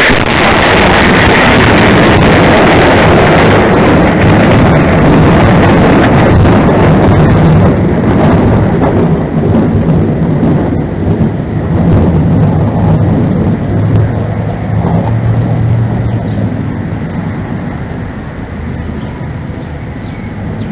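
A sudden, very loud rumbling roar that starts abruptly and rolls on for many seconds, slowly fading near the end; of unknown cause, first taken for a sonic boom.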